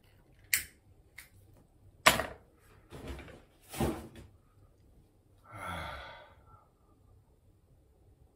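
A few sharp clicks and short scraping, knocking noises of small things being handled, then one long breathy exhale about five and a half seconds in.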